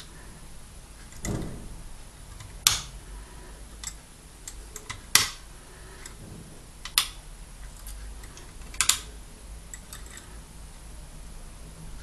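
Sharp metallic clicks of a lever pick working inside a five-lever mortice lock, lifting the levers one by one: four distinct clicks a couple of seconds apart, with a duller knock shortly after the start.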